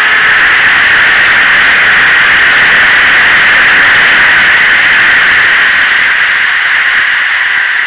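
Loud, steady wind rush over the microphone of a camera mounted on a motorcycle at speed, drowning out the engine. It eases slightly near the end.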